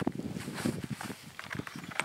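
Soft, irregular rustling and light knocks: handling noise from the shooter and rifle on the bench rest.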